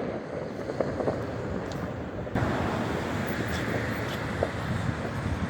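Steady rushing noise of wind and traffic, which gets suddenly louder a little over two seconds in, with a few faint, distant firework pops.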